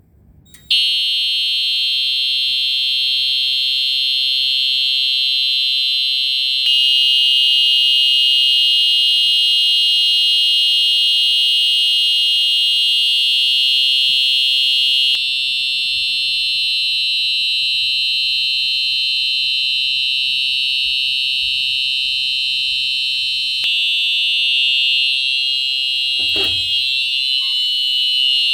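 Simplex TrueAlert horn sounding a steady continuous tone in its free-run mode, switching on about a second in when the Simplex T-bar pull station is pulled. A single knock comes near the end.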